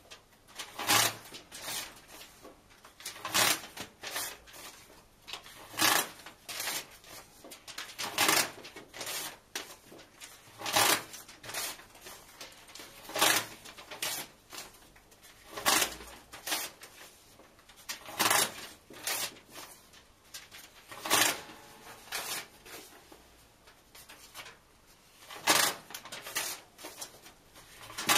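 Pages being ripped out of a book and torn in half, one after another: a short, sharp paper tearing sound about every two to three seconds, sometimes two rips close together.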